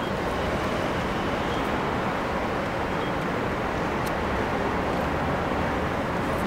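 Steady road traffic noise, an even rumble and hiss of passing vehicles.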